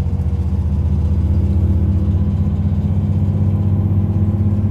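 A motor vehicle running with a steady low drone.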